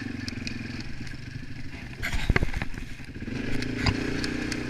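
ATV engine running, its drone easing off after about a second and picking up again past the middle. A cluster of loud knocks and clatter comes about two seconds in.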